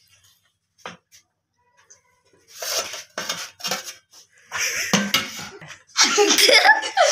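Large steel kitchen knife scraping and clinking against a stainless-steel tray in several short bursts. Near the end a child's wavering voice starts up.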